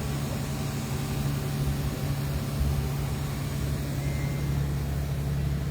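Boat's engine running steadily underway, a constant low drone with a hiss of wind and water over it.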